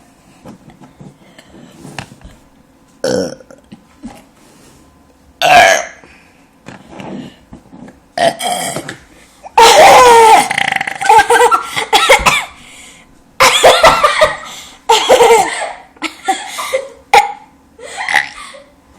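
A series of loud human burps, one drawn out in bending pitch about halfway through, with laughter between them.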